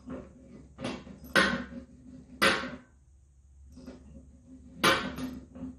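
A handful of sharp metallic clanks and knocks of a hand tool against a stainless steel brew kettle as its weldless fitting is worked loose, spaced irregularly with the loudest about a second and a half, two and a half, and five seconds in.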